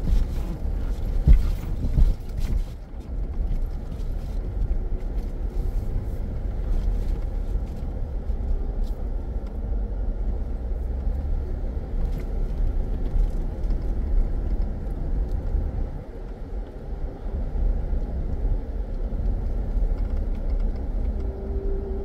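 2021 Jeep Grand Cherokee Trailhawk on all-terrain tyres driving a dirt trail, heard from inside the cabin: a steady low rumble of engine and tyres, with a few knocks and rattles in the first couple of seconds.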